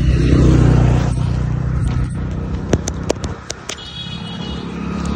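A motor vehicle's engine running steadily, a low hum that is loudest at the start. A few sharp clicks come near the middle.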